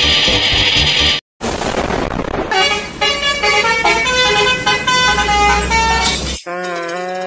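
Music with a steady beat cuts off about a second in. After a brief gap, a Basuri 'telolet' multi-tone bus horn plays a stepping melody of changing notes, then holds one steady honk near the end.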